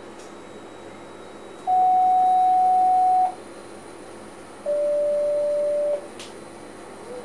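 Two long electronic beeps in the cab of an NS SLT electric train standing at a platform: a higher tone of about a second and a half, then a lower, slightly quieter one of just over a second, over the cab's steady hum.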